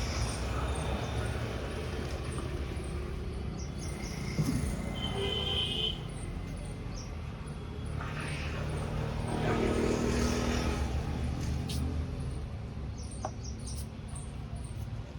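Roadside traffic ambience: a steady low rumble of traffic, with one vehicle swelling past about nine to eleven seconds in and a short high chirp about five seconds in.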